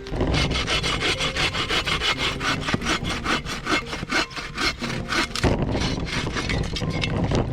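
Hand saw cutting through firewood in quick, regular back-and-forth strokes, about five a second.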